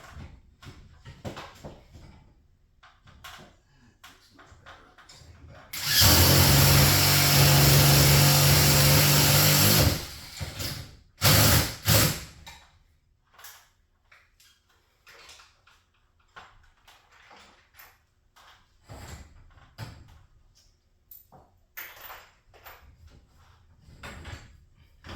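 A power drill runs at full speed for about four seconds, then gives two short bursts. Light knocks and tool clatter fill the rest.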